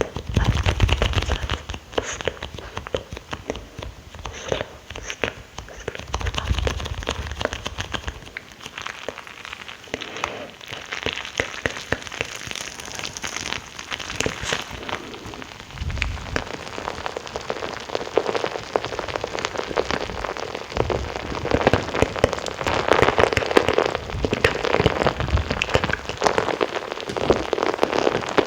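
Close-miked ASMR mouth sounds: a dense, continuous stream of small wet clicks and smacks with a crackly texture. A few short low rumbles come in between.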